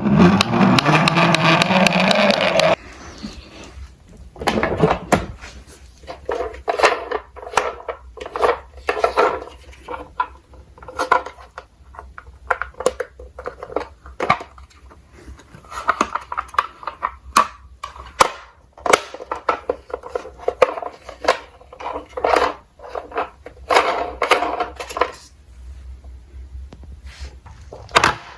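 Small diecast toy cars clicking and clattering as they are handled and run down a slope track, in short rolling runs every few seconds between sharp knocks. A loud, dense rush of sound fills the first three seconds.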